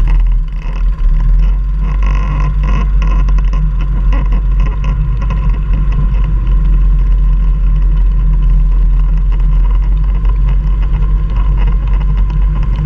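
ATV (quad) engine running steadily while riding up a steep trail, with irregular small clicks and rattles over the engine note.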